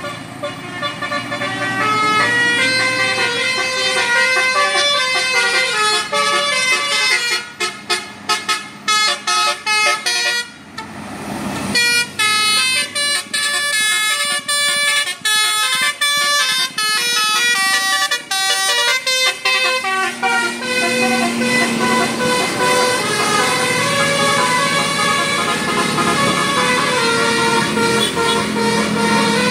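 Bus telolet basuri musical horn playing a tune of quick stepped notes, several horn tones often sounding together, with longer held notes in the last third. A brief rushing hiss comes about ten seconds in.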